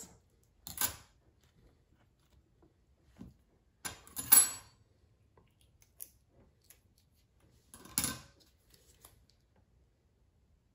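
Kitchen scissors snipping open a plastic frosting packet: a few short, separate snips and rustles a few seconds apart, the loudest about four seconds in.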